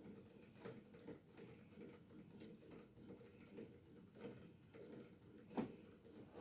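Near silence with faint, irregular ticks and creaks from an electric kettle just switched on, its element starting to heat; a slightly louder tick comes about five and a half seconds in.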